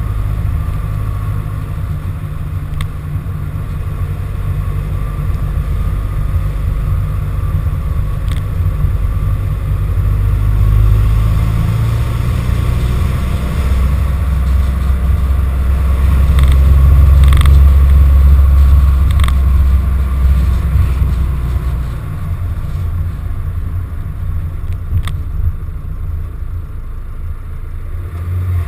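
A van driving slowly along a rough lane, heard through a GoPro mounted on the outside of the van: a steady low rumble of engine and running gear that swells midway, with a few short sharp knocks.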